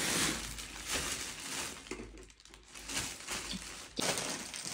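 Plastic bags and snack packets rustling and crinkling as they are handled, irregular and fading briefly in the middle.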